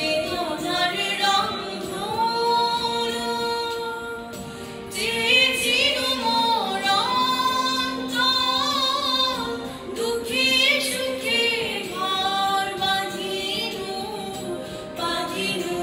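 A boy singing a Bengali song into a karaoke microphone, holding long notes with vibrato, over backing music.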